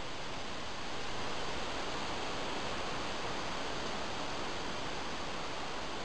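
Steady, even hiss picked up by a trail camera's built-in microphone, with no calls or distinct sounds.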